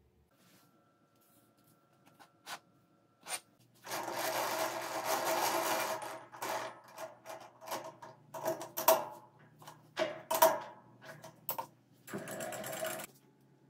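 A three-jaw lathe chuck being worked, its jaws run in and out by the scroll in a rapid metallic rattle. Sharp clicks and knocks come as a metal tube is set between the jaws, and a second burst of rattle near the end comes as it is clamped.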